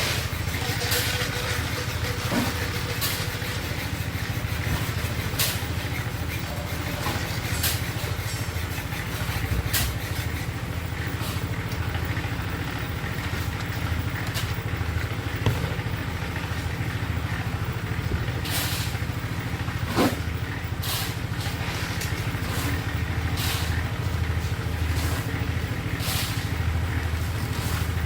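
An engine running steadily with an even low drone, with a few sharp clicks and knocks scattered through it.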